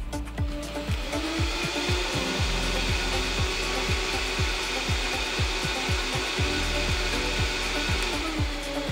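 Vitamix blender running at speed, grinding a thick frozen banana and oat milk blend for nice cream. The motor's whine climbs about a second in, holds steady, and winds down near the end.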